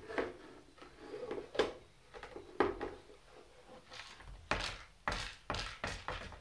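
A hard plastic food puzzle knocked, tipped and slid about on a wooden floor by a cat pawing at it to get the snacks out: a string of irregular clunks and clatters, closer together and louder in the second half.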